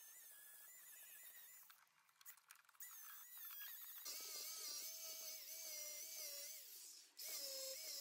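Angle grinder with an abrasive disc grinding a cast Nordic Gold axe. Its whine wavers in pitch as the disc is pressed on and eased off, drops out briefly about two seconds in, and comes back lower and stronger about halfway through.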